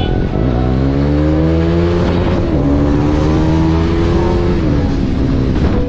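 Motorcycle engine accelerating, its pitch climbing, dropping briefly at a gear change about two and a half seconds in, climbing again, then falling as the throttle eases near the end.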